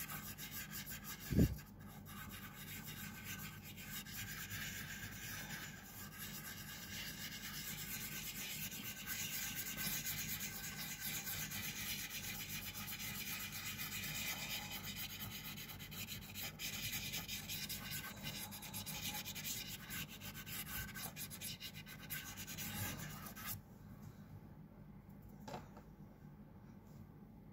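Pastel stick being scribbled and rubbed across paper, a continuous dry scratching that stops about four seconds before the end. A single low thump about a second and a half in.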